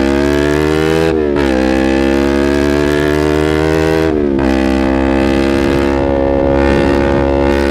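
Yamaha YZF-R25 parallel-twin engine through a Proliner aftermarket exhaust, pulling under acceleration. Its pitch climbs and drops sharply twice, about one second and four seconds in, as it shifts up a gear, then holds nearly steady.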